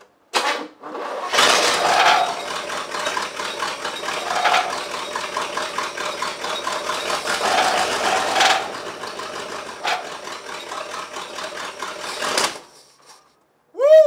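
Chevrolet El Camino engine cranking over on its starter motor in an attempt to start a car that has been a no-start: a brief crank, then about eleven seconds of steady, rhythmic cranking that stops suddenly.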